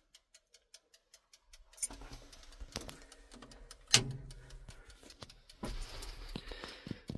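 Quick, even clockwork ticking, about six or seven ticks a second, from a locomotive's registering speedometer with its built-in clock. From about two seconds in, handling knocks, the sharpest about four seconds in, and rustling cover it.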